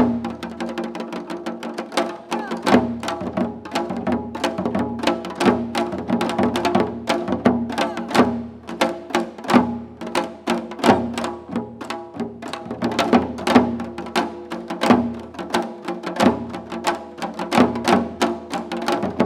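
Korean janggu (hourglass drum) ensemble playing quick, regular rhythmic strokes over steady held tones.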